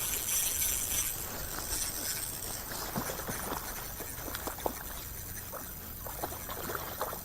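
A sudden burst of splashing water that fades over a second or two, followed by scattered small clicks and knocks.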